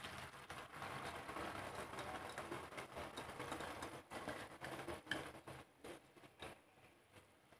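Rice being poured from a plate into a wok of chicken stock: a light patter with scattered small clicks as the grains fall and the last of them are brushed off the plate. The sound dies away near the end.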